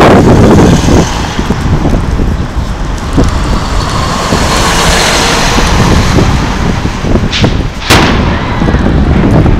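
Fireworks going off: a loud bang at the start and two sharp bangs close together about seven and a half seconds in, over steady wind noise on the microphone.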